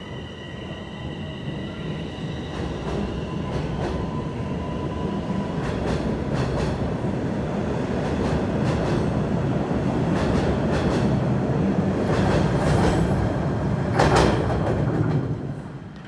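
TTC Bombardier Toronto Rocket subway train departing the station. At first there is a steady high electric whine, which fades within the first few seconds. The low wheel rumble and rail-joint clicks grow steadily louder as the train speeds past, with one loud clank about fourteen seconds in. Then the sound falls away near the end as the last car clears the platform.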